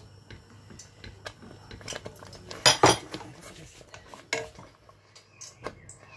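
Wooden spoon stirring a thick xalwo mixture in a stainless steel pot, knocking and scraping against the pot's sides and bottom, with a pair of loud knocks about three seconds in.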